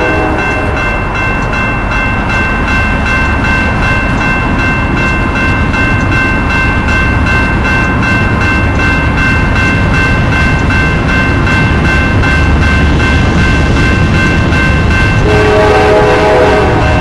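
Grade-crossing warning bell ringing in rapid, even strikes over a low rumble. About fifteen seconds in, the multi-tone air horn of an approaching Norfolk Southern freight locomotive sounds as the train nears the crossing.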